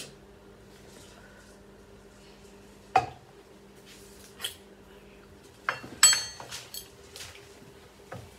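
Scattered clinks and taps of metal spoons against dishes, the loudest a ringing clink about six seconds in, over a faint steady hum.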